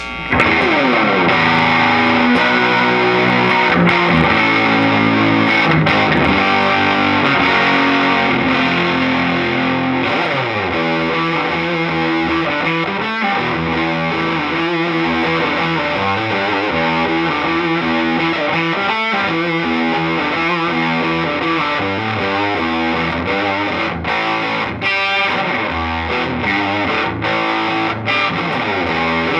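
2019 Gibson Les Paul Classic electric guitar, with split-coil Zebra humbucking pickups, played through an amp with a distorted tone: a continuous run of riffs and chords.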